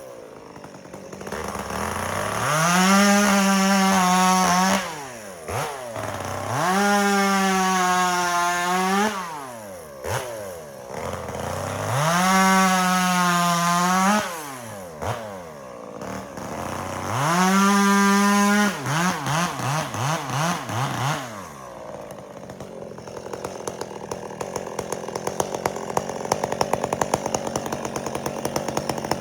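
Two-stroke chainsaw throttled up to high speed four times, each time held for two to three seconds before dropping back. After that it runs unevenly at low speed for the rest of the stretch.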